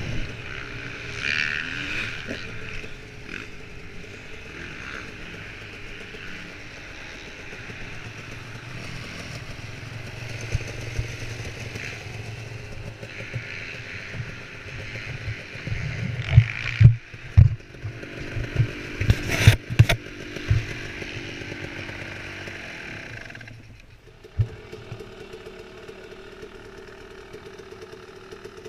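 Two-stroke dirt bike engine, a KTM EXC 250, running at low throttle as the bike rolls slowly, with a run of loud knocks and thumps about sixteen to twenty seconds in. Near the end the engine settles to a steady idle.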